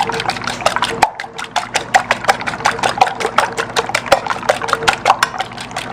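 A small wire whisk beating eggs in a bowl: quick, even clicking strokes, about seven a second, over the steady hum of a microwave oven running.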